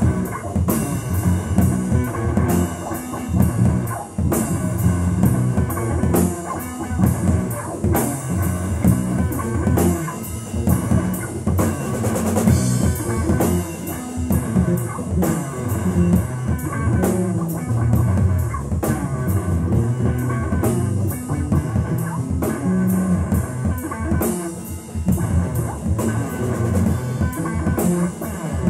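Live instrumental rock played by a trio of electric guitar, electric bass and drum kit, with a steady beat and no vocals.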